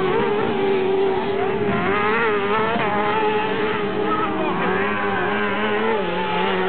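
Several motorcycle-engined crosskarts racing together, their engines overlapping and wavering in pitch as the drivers accelerate and lift through the corners.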